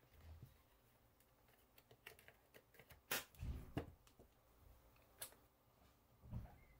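Faint, scattered clicks and taps of hands handling a plastic multimeter case and its battery door, with one sharper click about three seconds in. Right at the end, a short high beep from the meter.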